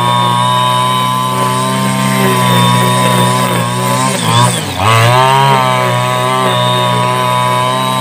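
Petrol brush cutter running at high speed while cutting grass. About halfway through, its engine speed drops sharply and then climbs back up.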